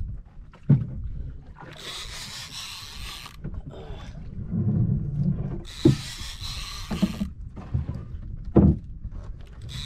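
Fishing reel cranked hard in bursts of about a second and a half, roughly every four seconds, as a hooked fish is pumped and reeled in. Dull knocks are heard between the bursts.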